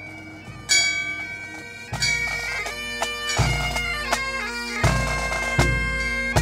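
A bell is struck once and rings on as it fades. About two seconds in, a pipe band starts up: bagpipes play a tune over their steady drones, with a bass drum beating a few slow strokes.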